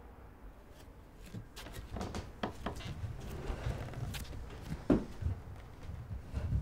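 Bare feet stepping on wooden floorboards: a run of soft, uneven footfalls and small knocks, with one sharper thump about five seconds in.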